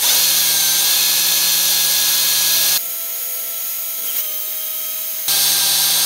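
Electric drill running steadily with a 1/8-inch bit, drilling into the metal ring of an engine crankshaft oil seal. For about two and a half seconds in the middle the sound drops in level and the drill's whine shifts higher, then returns to the first steady tone.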